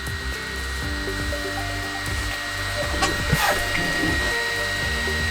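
A steady electric whir with a low hum, with soft background music of sustained notes changing pitch.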